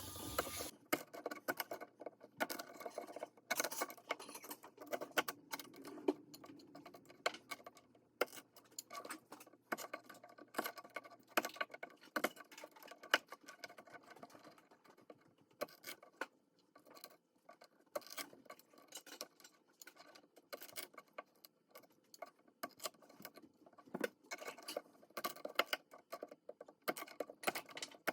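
Quiet, irregular light clicks, taps and scrapes of kitchen prep work, with no steady rhythm.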